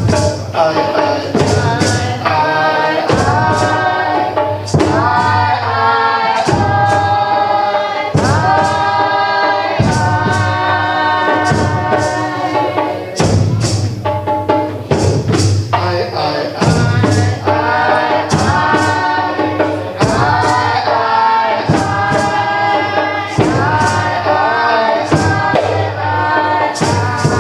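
Group singing, choir-like, over a steady drum beat.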